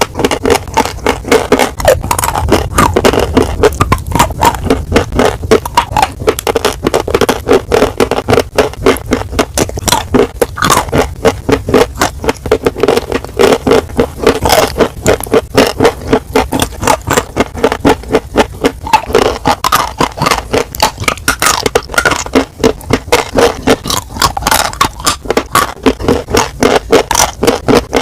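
Close-miked chewing of crunchy food, a rapid run of sharp crunches about four times a second.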